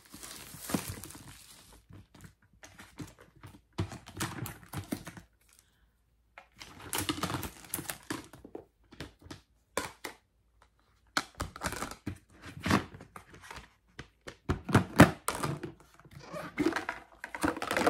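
Unpacking a boxed set of nesting storage bowls with lids: packaging rustling and tearing, with irregular knocks and clicks as the bowls and lids are handled and set down.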